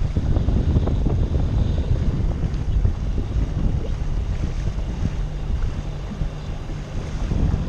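Wind buffeting the microphone, with water lapping and splashing against an inflatable dinghy's hull, a steady rough rumble with irregular crackles.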